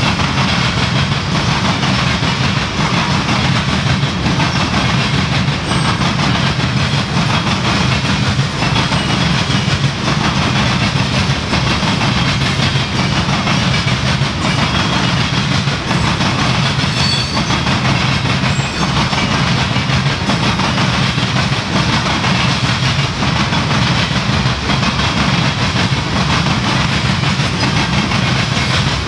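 Coal hopper cars of a CSX freight train rolling past: a steady rumble with the clatter of steel wheels on the rails, even in level throughout.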